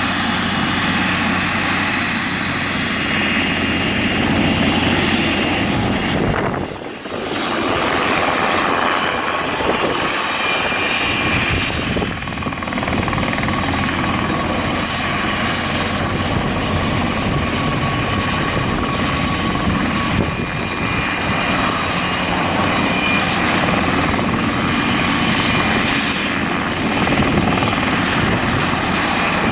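Mosquito XET single-seat turbine helicopter in flight: the turbine and rotor run as a steady high whine over a dense rushing noise, briefly dropping away about seven seconds in.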